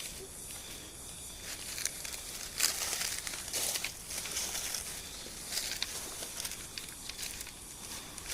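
Irregular rustling and crackling of dry leaves and undergrowth over a steady hiss.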